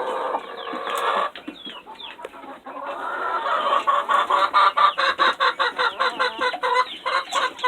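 A crowded flock of chickens shut in the coop, clucking and squawking over one another. About three seconds in it gets louder and turns into a fast run of clucks, several a second.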